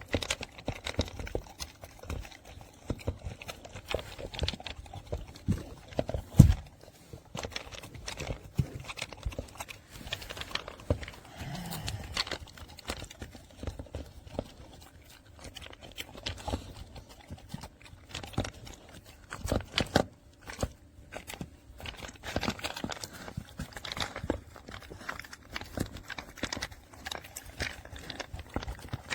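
A dog eating from a slow-feeder puzzle bowl: irregular clicks and knocks of food and muzzle against the bowl, with one louder thump about six seconds in.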